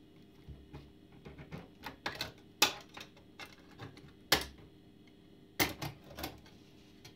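Irregular clicks and sharp knocks of hard objects being handled. The loudest come about two and a half seconds in, again around four and a half seconds, and twice between five and a half and six and a half seconds.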